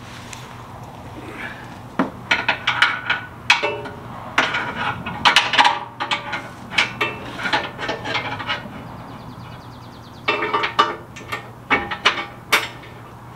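Metal clinking and knocking in irregular bursts as a long bar with a nut on it and a bolt are worked by hand into a pickup truck's frame rail, with a short pause about nine seconds in.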